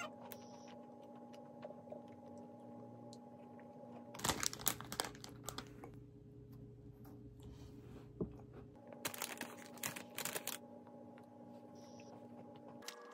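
Crisp pistachio cookie crunching as it is bitten and chewed, with a plastic bag crinkling as a hand reaches in for more; the noise comes in two short bursts, about four seconds in and again about nine seconds in, over a faint steady hum.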